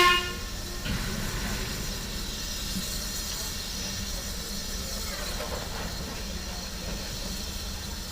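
A steam locomotive's whistle cuts off at the very start, followed by a faint steady hiss and low rumble from the engine, with a soft knock about a second in.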